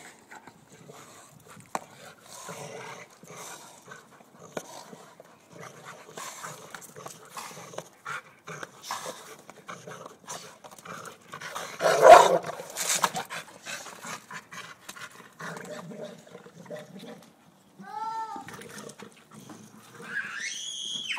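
Several American pit bull terriers biting and tugging at a knobby dirt bike tire: a continuous run of scuffling, chewing and rubber-scraping noises with the dogs' vocalizing, a loud burst about halfway through, and a few high, bending whines near the end.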